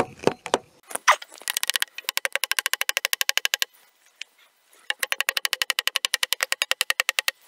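A hammer tapping rapidly on a wooden floorboard, about ten light taps a second in two runs with a short pause between them, driving a tight-fitting board down into the groove of a wooden floor frame.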